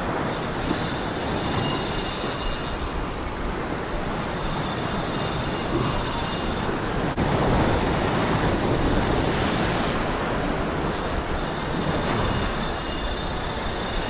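Sea waves breaking and washing over a rocky shore, a steady rushing noise that swells a little about halfway through, with wind rumbling on the microphone.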